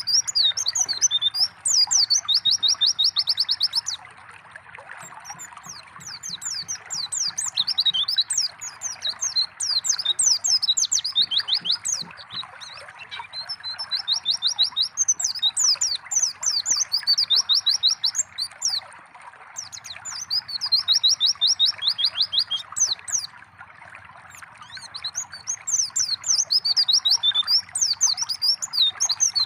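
White-eyes (pleci) singing in repeated bouts of rapid, high chirps and fast trills, each bout a few seconds long with short pauses between, over the steady sound of trickling water.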